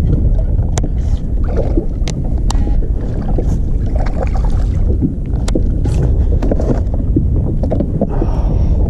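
Wind buffeting the microphone in a steady low rumble, with scattered sharp clicks and knocks from fishing tackle being handled on the kayak.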